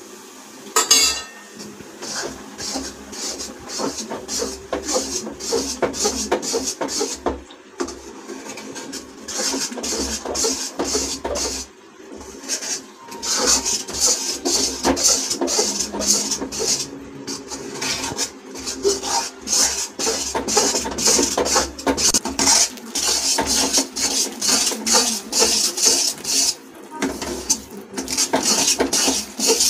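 Long steel spatula scraping and stirring thick besan-and-ghee batter in an iron kadhai: a rapid, uneven run of rasping scrapes against the pan, with a few short pauses.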